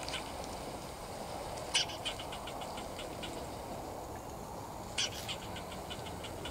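A tree squirrel alarm-calling: runs of quick chucking notes, about six a second, twice broken by a louder, harsh call, the first about two seconds in and the second about five seconds in.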